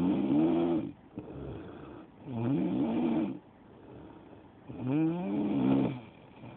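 Loud snoring in a steady rhythm: three snores about two and a half seconds apart, each a pitched, rising tone on the in-breath, with quieter breathing between. The first snore is already under way at the start.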